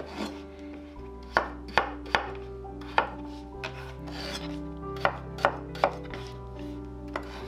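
A chef's knife cutting through peeled raw potatoes on a wooden cutting board: a series of sharp knocks as the blade hits the board, mostly in quick runs of two or three cuts.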